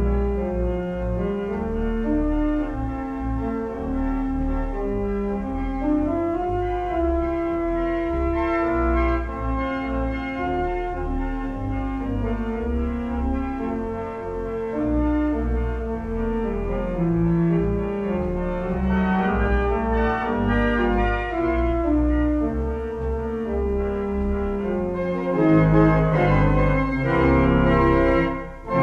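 Pipe organ playing slow, held chords over a deep pedal bass.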